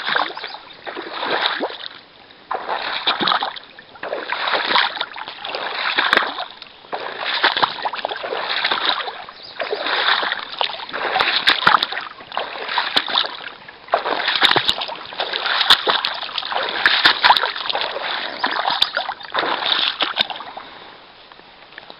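Repeated splashing in shallow water, one splash about every second and a half.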